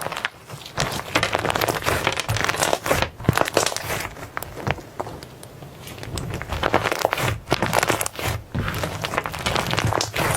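Slime being squeezed and stretched by hand, giving sticky crackling, clicking and popping noises in uneven bursts with short lulls.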